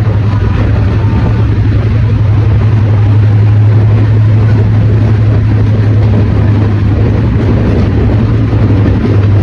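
Diesel locomotive engine idling: a steady, loud low drone.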